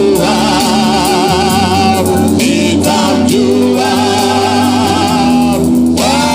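Amplified gospel singing: a man's voice through the church PA leads a congregation in a worship song, with long held notes sung with vibrato in two phrases and a short break between them.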